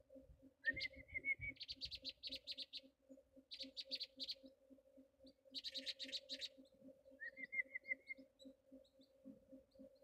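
Wild birds calling close by: several phrases of rapid high chirps, each about a second long. Twice, about a second in and again near the end, a rising note runs into a short trill.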